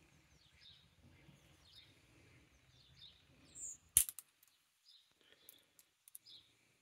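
Circlip pliers working a circlip on a moped clutch drum: faint fiddling, then one sharp metallic snap about four seconds in, followed by a few light clicks.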